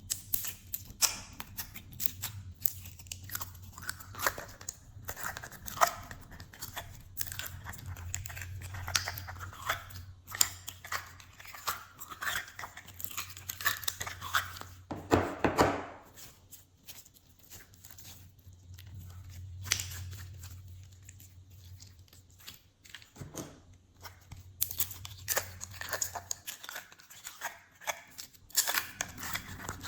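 Hands kneading, stretching and squishing glossy slime, giving a dense run of sticky crackles and sharp clicking pops, with a louder squelching stretch about halfway through.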